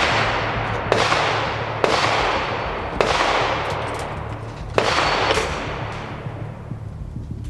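A run of loud sharp bangs, about four or five roughly a second apart, each followed by a rumbling tail that fades out, over a steady low hum; the sound dies away in the last couple of seconds.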